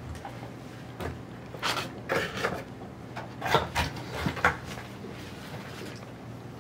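Cardboard and paper rustling, scraping and light tapping as the pieces of a cardboard shadow-puppet theatre are handled: a string of short scrapes and taps from about one second in to about four and a half seconds in.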